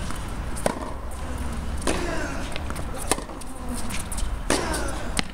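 Tennis rally on a hard court: the ball is struck by rackets and bounces, making sharp hits about once a second.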